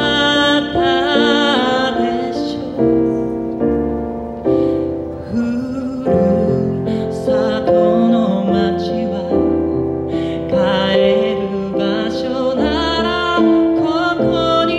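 Male singer singing a slow song with vibrato into a microphone over piano accompaniment.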